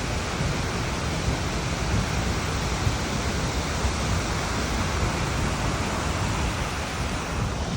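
Large waterfall close up: a steady, loud rush of heavy falling water crashing into its plunge pool and throwing up spray.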